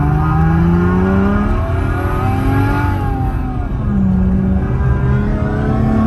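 Simulated engine sound from a plug-in sound generator played through a Renault Clio 4's speakers at full volume, its pitch rising with the revs as the car accelerates. It drops at a gear change about four seconds in, then climbs again.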